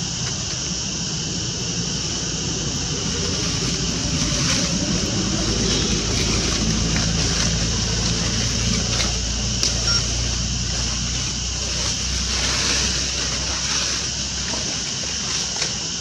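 Steady high hiss of outdoor background noise, with a low engine rumble that swells from about four seconds in and fades after about eleven seconds, like a motor vehicle passing; a couple of short ticks come near ten seconds and near the end.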